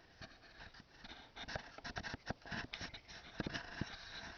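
Handling noise from the handheld camera as it is moved for a panorama: soft, irregular clicks and knocks over a faint hiss, busiest in the second half.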